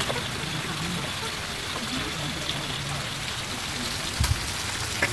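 Small fish sizzling as they fry in a wok on a portable gas stove, a steady crackling hiss, with a couple of knocks near the end.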